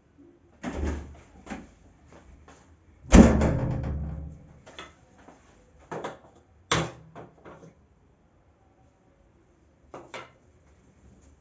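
A series of household knocks and clatter from things being handled. The loudest is a heavy knock about three seconds in that rings on for about a second, followed by smaller knocks and a final pair near the end.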